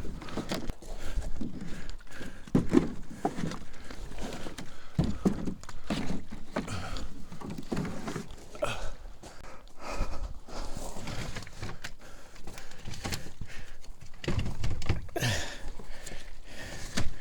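Jugs knocking and thunking irregularly as they are handled and packed into storage containers, with some footsteps.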